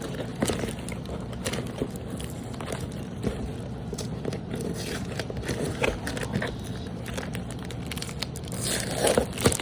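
Toy packaging being worked open by hand: scattered crinkling, crackling and small clicks of plastic and cardboard, with a louder rustle near the end.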